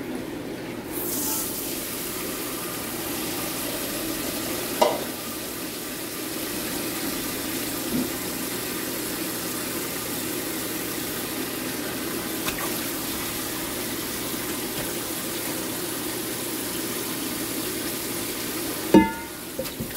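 Water running and pouring: a tap filling a steel bowl and hot water poured from a saucepan over the skin of a red sea bream fillet to scald it, matsukawa style. A knock about five seconds in and a louder clatter near the end.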